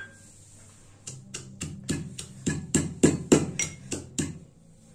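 Metal pestle pounding chopped green chillies and garlic in a small metal mortar (khalbatta): a quick run of about fourteen sharp knocks, roughly four a second, starting about a second in and stopping shortly after four seconds.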